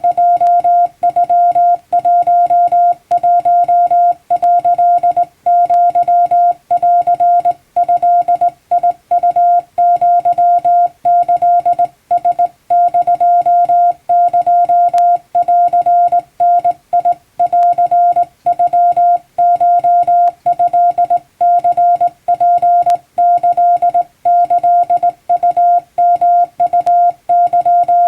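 Japanese wabun Morse code sent by hand on a telegraph key: a single steady beep switched on and off in short dots and longer dashes, with brief gaps between characters.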